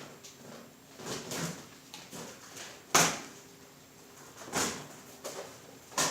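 A package being opened and handled by hand: a series of short rustling and scraping noises, with one sharp knock about three seconds in.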